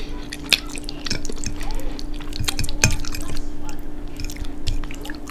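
Close-miked wet eating sounds from a mouthful of sauced fettuccine: sticky chewing, squishes and sharp mouth clicks coming thick and irregular, with a fork working through the noodles on the plate. A steady low hum runs underneath.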